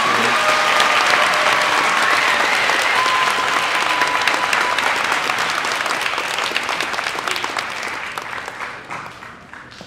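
Audience applause, loud and dense, dying away over the last couple of seconds.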